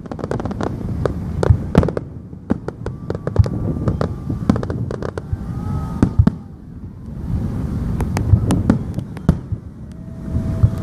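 Fireworks going off in a rapid, irregular series of sharp bangs and crackles over a low rumble of booms, with a few faint whistles.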